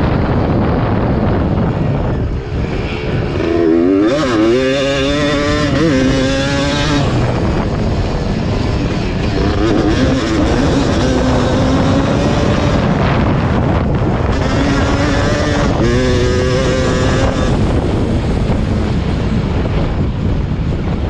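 1991 Yamaha WR250's two-stroke single racing, its revs rising and falling with the throttle. The revs drop briefly a couple of seconds in, then climb sharply with stepped gear changes, and climb again about three-quarters through. Wind rushes over the bike-mounted camera's microphone underneath.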